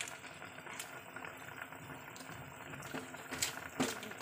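Pork braising in soy-sauce liquid, boiling hard in a steel pot: a steady bubbling and crackling, with a few sharper clicks about three to four seconds in.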